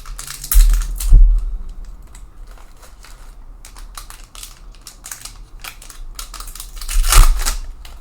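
Trading cards being handled: a run of sharp clicks and flicks as cards are moved, with two louder rustling, sliding spells and low thumps, one about half a second to a second in and one near the end.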